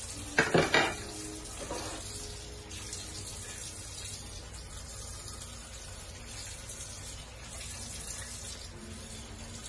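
Kitchen faucet running steadily into a sink as a dish is rinsed under it, with a brief loud clatter of the dish against the sink about half a second in.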